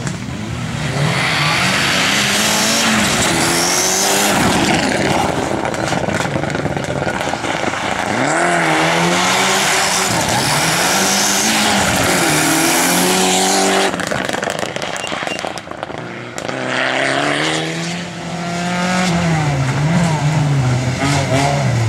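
Rally cars at full throttle on a stage, engines revving hard, their pitch climbing and dropping repeatedly through gear changes. There is a brief lull about two-thirds of the way through before another engine surges in.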